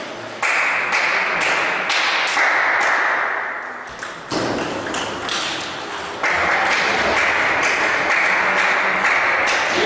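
Table tennis ball clicking off paddles and the table during rallies, sharp clicks about every half second, over a loud steady hiss that dips briefly near the middle.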